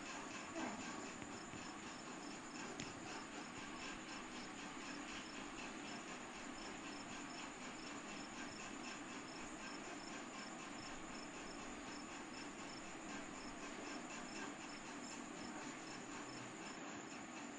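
Insects chirping steadily, a high, evenly pulsing trill over a constant faint background hum.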